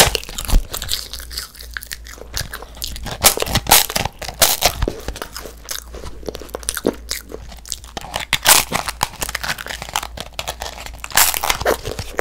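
Close-miked crunching of a crisp sheet of edible colored paper being bitten and chewed: a string of sharp, irregular crunches that come in clusters.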